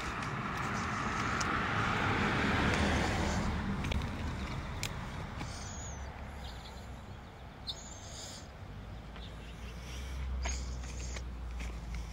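Heavy, close breathing into the microphone, swelling over the first few seconds, over a low rumble that grows near the end and a few faint clicks.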